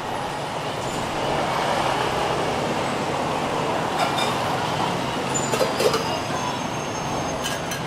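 Steady street background of road traffic, with a few sharp clinks about four seconds in, around six seconds and again near the end.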